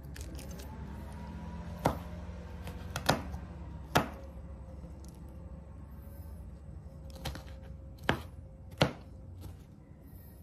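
A kitchen knife striking a cutting board, six or so sharp chops spaced irregularly with pauses between, over a steady low hum.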